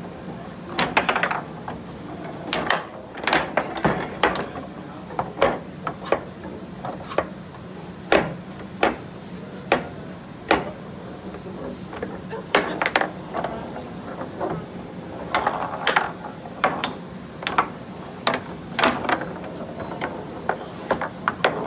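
Foosball in play on a homemade table: irregular sharp clacks and knocks as the ball strikes the figures and the table walls and the rods are jerked and spun, some in quick flurries.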